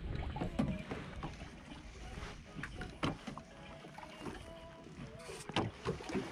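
Boat-at-sea ambience: water moving against a fishing boat's hull, with scattered small knocks and clicks.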